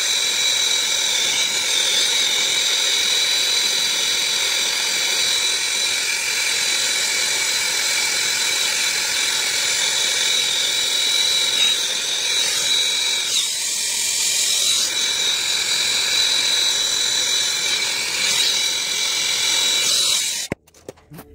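Nitrogen hissing steadily through the heat pump's copper refrigerant lines, with a high whistle over the hiss. It is being purged through the lines before brazing so the joints do not oxidise. The sound cuts off suddenly near the end.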